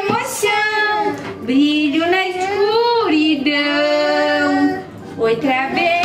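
A woman and a young girl singing a children's song together, with a long held note a little past the middle.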